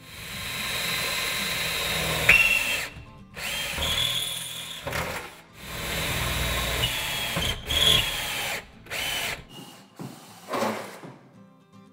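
Hand-held power drill boring holes through the metal cab floor at the steering column's mounting plate. It runs in about six bursts with short pauses between them, and the motor's whine climbs as it spins up.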